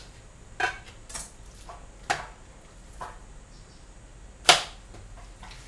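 Knife knocking on a cutting board while trimming a slab of pork belly, a handful of sharp, irregularly spaced knocks, the loudest about four and a half seconds in.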